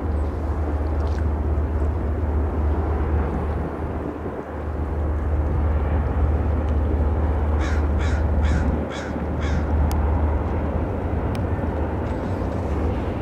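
A crow cawing five times in quick succession, about half a second apart, over a steady low rumble.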